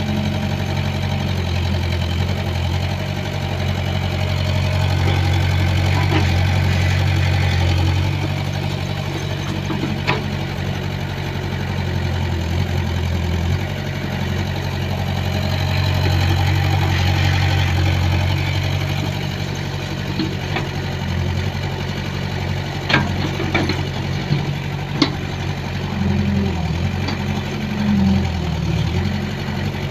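An excavator's diesel engine running steadily, with a few sharp metallic clanks about three-quarters of the way through. Near the end the engine note dips and wavers, as if it takes a load.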